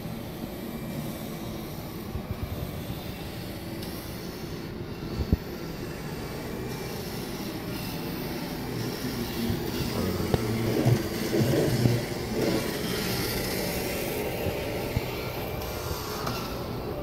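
Steady background noise of a large indoor hall, a low rumble with a hiss above it. There is a sharp knock about five seconds in, and the noise grows louder and busier for a couple of seconds about ten seconds in.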